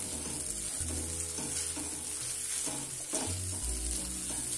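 Wooden spatula stirring and scraping mashed boiled potato with roasted besan in a heavy-bottomed metal kadhai, with a light sizzle of hot oil. The scrapes come irregularly, one every second or so, as salt is mixed into the stuffing.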